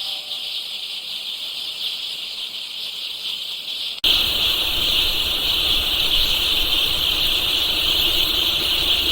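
A large crowd of chicks peeping together, a dense, steady high chorus. About four seconds in it cuts abruptly to a louder stretch with a low rumble underneath.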